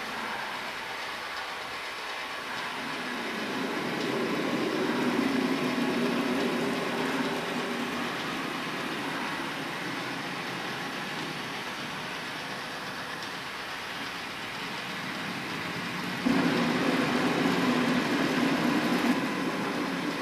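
Motor-driven twin-turntable pantograph drawing machine running: a steady mechanical rumble and whir from its turntables and wooden linkage as the pen traces lines. The level swells and eases, and jumps louder about sixteen seconds in.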